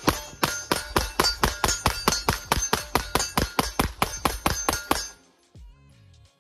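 Rapid fire from a ported 9mm Smith & Wesson M&P Performance Center Carry Comp pistol: a fast unbroken string of sharp shots, several a second, that stops about five seconds in.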